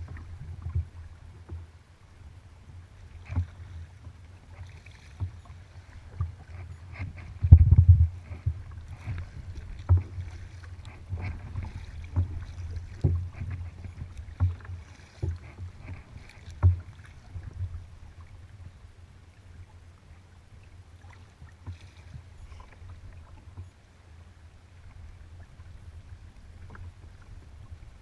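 Kayak paddling: the paddle blades dipping and splashing in the water at an irregular pace over a low, steady rumble, with one louder splash or knock about eight seconds in.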